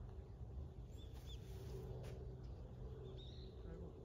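Faint outdoor ambience with a steady low rumble and a few short, high bird chirps, about a second in and again past three seconds.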